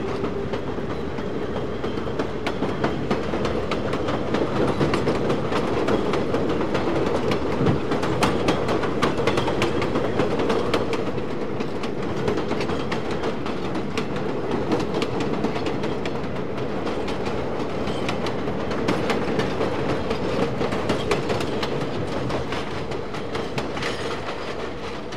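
Train running along the rails, its wheels clattering over the track with many irregular clicks above a steady drone.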